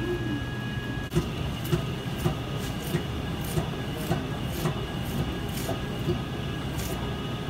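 Steady machinery hum in a butcher's meat room, with light sharp clicks coming about twice a second from about a second in, as a stuffed sausage rope is twisted into links.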